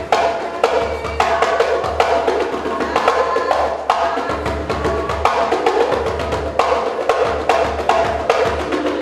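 Percussion-led music: fast, dense drum strokes with a repeating pitched line above them.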